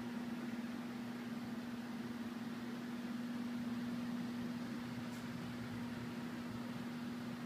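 Steady hum over a broad hiss of air, from the basement's furnace and air-conditioning equipment running.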